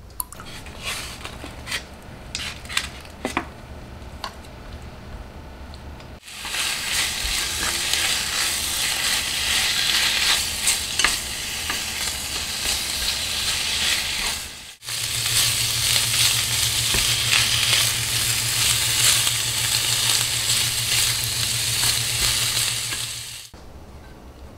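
Thinly sliced meat sizzling in a frying pan while it is stirred with chopsticks. The sizzling comes in two long stretches with a brief break between them, and the second has a steady low hum beneath it. A few light clicks and knocks come before the sizzling starts.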